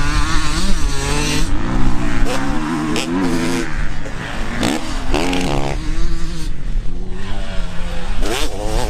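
Several motocross bikes revving on a dirt track, their engine pitches rising and falling with the throttle. One engine revs up sharply near the end as a bike takes a jump.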